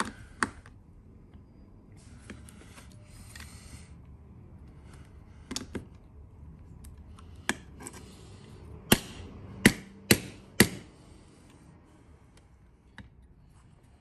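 Small metal clicks and taps from a Baldwin 6020 mortise lock's parts and a screwdriver on its open metal case while the internals are worked into place. The loudest part is four sharp clicks in quick succession a little past the middle.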